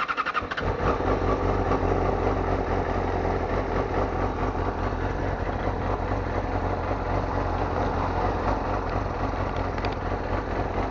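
Yamaha YZF R6's 600 cc inline-four engine idling steadily while the bike stands still, coming in abruptly at the start and holding an even, unchanging note.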